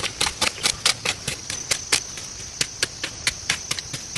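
A quick, irregular run of sharp knocks or taps, about four or five a second, over a steady high-pitched hum.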